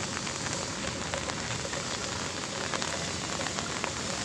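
Light rain falling steadily on flat concrete rooftops: an even hiss with many small ticks of single drops landing close by.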